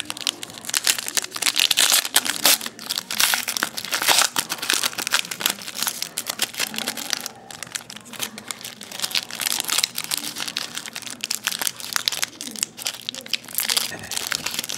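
Foil-and-plastic trading card wrapper being torn open and crinkled by hand: a dense crackling, loudest in the first few seconds, then easing off and picking up again.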